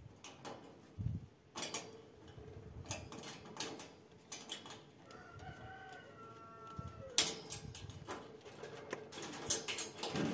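Wire rabbit cage parts clinking and knocking as they are handled, with a rooster crowing once, about five seconds in.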